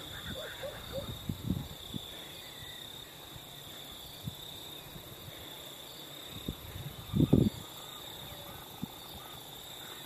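Early-morning outdoor ambience: a steady high-pitched insect drone, with a few faint animal calls in the first couple of seconds. Scattered low thumps come through, the loudest a short cluster about seven seconds in.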